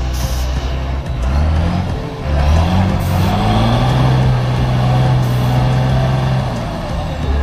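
Truck engine revving up, with a short dip in the middle like a gear change, then running steadily at higher revs before easing back to a low hum near the end. Music plays faintly underneath.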